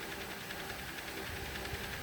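Homemade mini fan's small electric motor running, a steady whir with an even flutter from the spinning blades.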